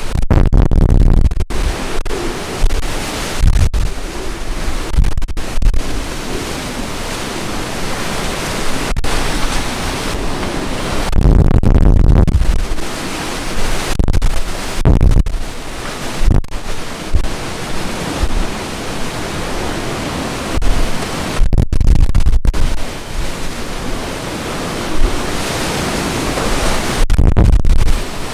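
Hurricane-force wind and driving rain, a loud continuous rush, with strong gusts hitting the microphone as low rumbling surges several times, the heaviest about eleven to thirteen seconds in.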